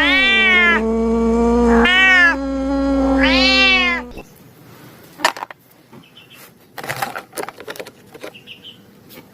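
Domestic cat meowing, a run of long drawn-out meows that rise and fall in pitch and stop about four seconds in. Scattered soft clicks and taps follow.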